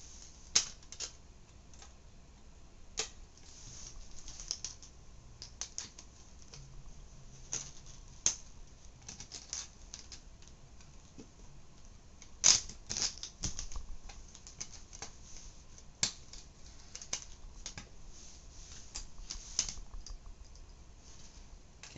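Hands working at a floppy drive's small plastic and metal parts: irregular clicks, ticks and light rattles, with a couple of sharper snaps, as a part is worked loose.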